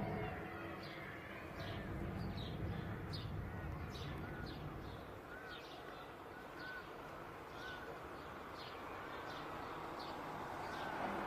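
Small birds chirping repeatedly, short high notes about twice a second, with a few softer higher calls, over steady outdoor background noise.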